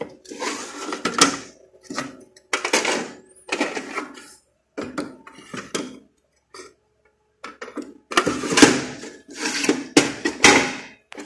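Handling noise from a sheet-metal card cage of circuit boards being gripped, turned and tilted on a cardboard box: irregular scraping and rustling with a few sharp metal clicks and clunks.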